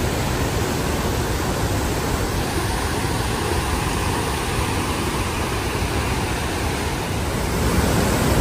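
Steady rushing of Johnston Creek's whitewater rapids and waterfall, an even wash of water noise that grows a little louder near the end.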